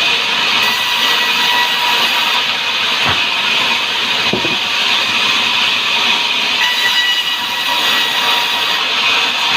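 Sawmill saw cutting through a hardwood log, a loud, steady hissing noise with a faint whine. Two brief knocks come about three and four and a half seconds in.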